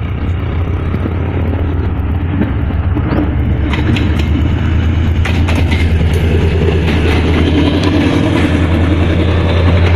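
Pakistan Railways diesel locomotive passing close by with a steady low engine drone that grows louder as it comes alongside. From about four seconds in, rolling noise and a few sharp clicks join it as the locomotive and its passenger coaches go by.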